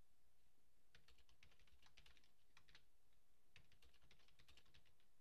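Faint typing on a computer keyboard: quick runs of key clicks starting about a second in.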